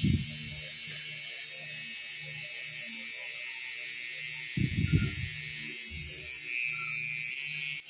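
Electric permanent-makeup tattoo pen buzzing steadily while tattooing an eyebrow. It grows louder near the end and cuts off suddenly. A few low thumps come about five seconds in.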